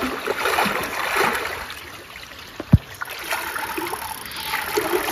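Water splashing and sloshing around an inflatable boat as a hooked wels catfish is played close in on a bent rod. One sharp thump stands out nearly three seconds in.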